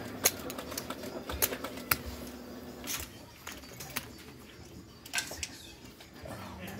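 Casino chips clicking against each other and on the felt as they are gathered and placed on a poker table: a run of irregular sharp clacks, thickest in the first three seconds.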